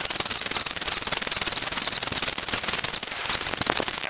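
Footsteps on a shingle beach: pebbles crunching and grinding underfoot in a dense, continuous crackle as someone walks.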